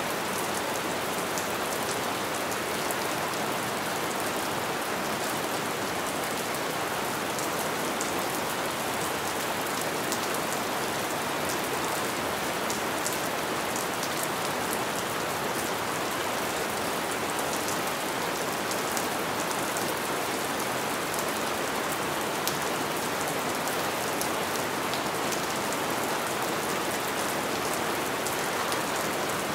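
Steady light rain: an even hiss with many small, sharp drop ticks scattered through it, unchanging throughout.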